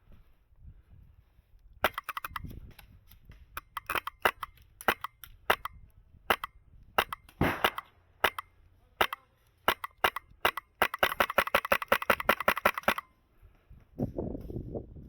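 HPA airsoft rifle with a Polarstar Kythera engine firing: short bursts and single shots, then a continuous burst of rapid fire lasting about two seconds near the end. A low rumble follows the long burst.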